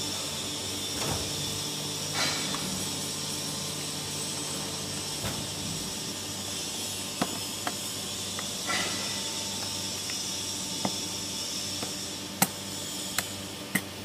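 Automatic aluminium can baler running on its hydraulics, a steady hum with hiss, while its gate lifts on a pressed bale of crushed cans. Sharp metallic clicks come at scattered moments in the second half, the loudest about twelve seconds in and two more just before the end.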